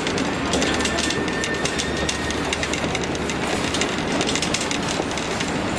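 Passenger train's wheels clickety-clacking over rail joints with a steady rumble, heard from an open platform of the moving car. A faint high squeal comes in about half a second in and fades after a couple of seconds.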